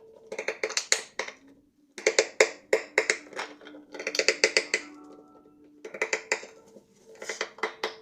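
Background music: plucked strings in quick rhythmic strums over held notes, in repeating phrases about a second long.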